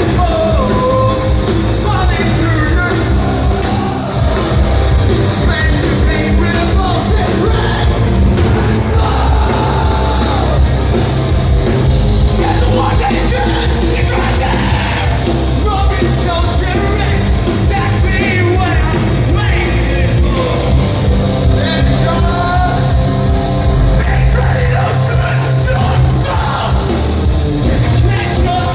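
Rock band playing a song live at loud, steady volume, with a vocalist singing and yelling over drums and distorted guitars.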